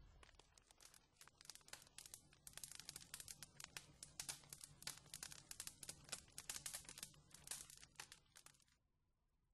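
Faint, dense crackling and crinkling over a low hum, cutting off abruptly about a second before the end.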